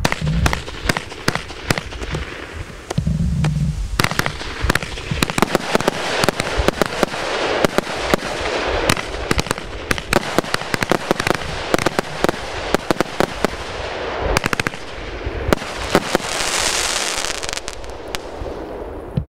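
A 2Fireworks 'Shenyang' 40-shot, 500-gram firework cake firing: a rapid, irregular string of sharp shots and bursts over continuous crackle, with a spell of hissing crackle near the end.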